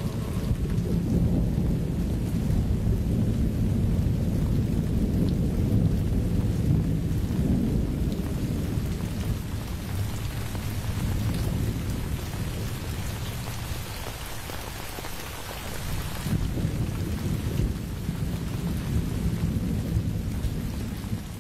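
Heavy rain pouring down with deep rolling thunder. The rumble swells strongly early on, eases off past the middle, and builds again toward the end.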